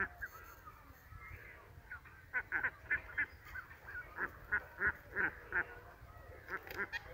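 A flock of domestic ducks quacking in quick runs of short, repeated calls, softer for the first two seconds and then louder and busier.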